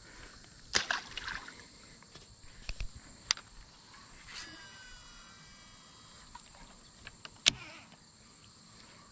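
Fishing rod and reel being cast and worked: a few sharp clicks and a short whir from the reel, over a steady high buzz of insects.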